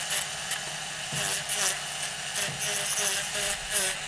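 Small handheld rotary tool with a thin cutting disc grinding away a layer of old plaster from a fresco: a steady motor whine with frequent scratchy grating as the disc works the surface.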